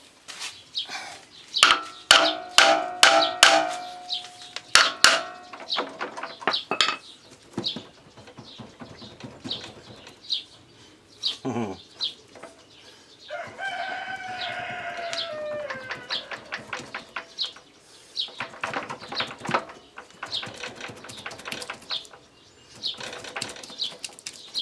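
Metal clanks and knocks, some ringing, from tools and parts of a walking tractor's half-axle assembly being handled and worked loose, densest in the first few seconds. Midway, a rooster crows once, a long call falling in pitch.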